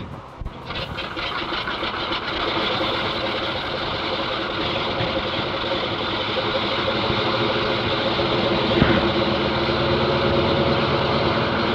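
De Havilland Canada DHC-2 Beaver's nine-cylinder Pratt & Whitney R-985 Wasp Junior radial engine running on the ground, growing louder over the first couple of seconds and then holding steady. A single sharp knock comes about three-quarters of the way through.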